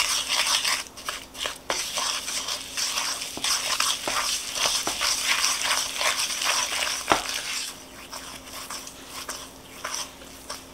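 Wooden spoon stirring and scraping a thick, sticky mix of brown sugar, peanut butter and egg around a mixing bowl, with many small clicks and one sharper knock of the spoon against the bowl about seven seconds in. The scraping gets quieter after about eight seconds.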